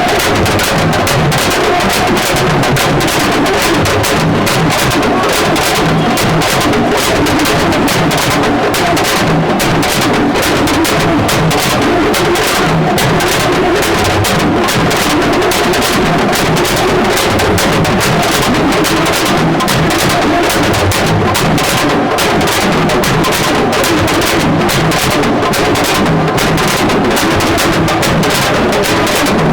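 Music with fast, dense drumming that runs on at an even loudness.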